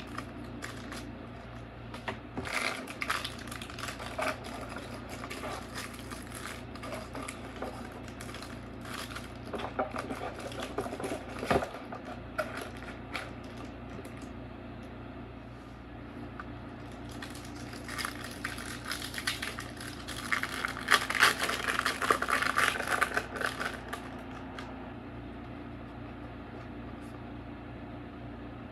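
Foil Pokémon booster pack wrapper crinkling and trading cards being handled and slid against one another: bouts of crackly rustling and light clicks, the loudest stretch about two-thirds of the way through. A steady low hum sits underneath.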